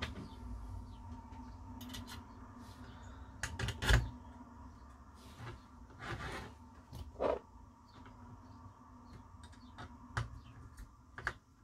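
Light clicks and taps of small metal parts being handled as the Garrard 86SB turntable's rebuilt motor housing is fitted with its locking screws, with one sharper knock about four seconds in.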